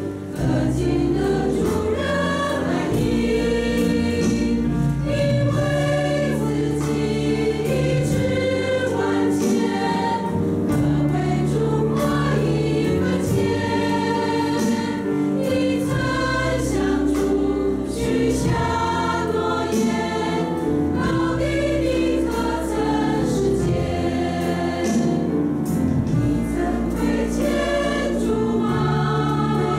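A women's church choir singing a hymn, in sustained sung phrases over held low accompanying notes.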